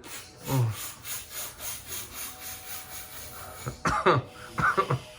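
A man breathing rapidly and forcefully in a rhythmic breathing exercise, about three sharp breaths a second. There is a short low vocal sound about half a second in, and several louder, harsher breaths near the end.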